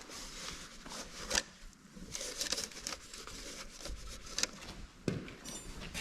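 Light, irregular handling noises: soft rustling with a few sharper clicks and taps scattered through.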